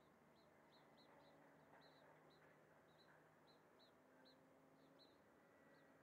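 Near silence outdoors, with a small bird's short high chirps repeating irregularly, about two or three a second, and a faint steady low hum underneath.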